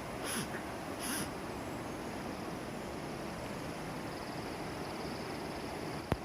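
Steady rushing outdoor ambience on a forest trail, with a faint insect trill setting in about halfway through. Two short rustling bursts come near the start and a single sharp click comes just before the end.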